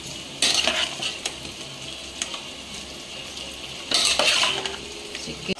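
Raw chicken pieces dropped into a pot of hot oil and masala, sizzling sharply twice, about half a second in and again about four seconds in, over a steady frying sizzle. Light clicks of a knife against the metal pot and bowl.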